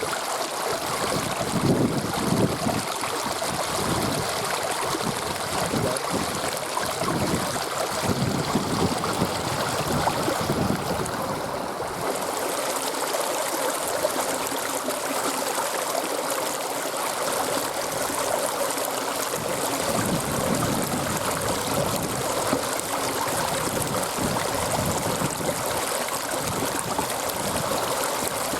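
Steady rushing of running river water, with gusts of wind buffeting the microphone as uneven low rumbles for much of the time.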